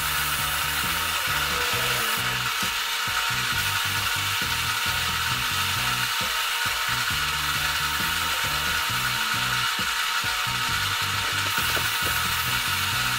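Compressed-air gravity-feed paint spray gun hissing steadily as it sprays enamel, over background music.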